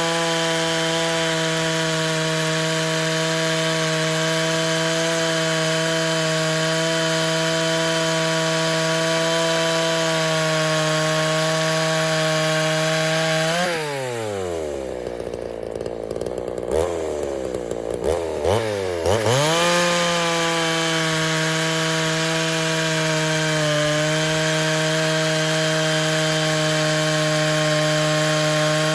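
Two-stroke Poulan Countervibe 3400 chainsaw with a Stihl RS chain running at full throttle and cutting through a log. Its engine drops to idle about 14 seconds in, with a few quick throttle blips, then revs back up for the next cut about 20 seconds in.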